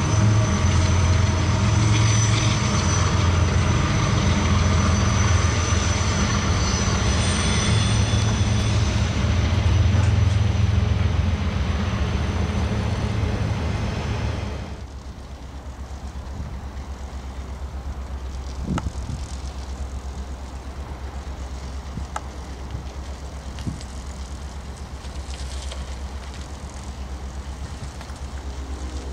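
BNSF diesel locomotives and a double-stack container train passing close by, a loud, steady low engine drone mixed with wheel and rail noise. About halfway through this gives way to a much quieter, steady low rumble with a few faint clicks, as a BNSF coal train approaches from a distance.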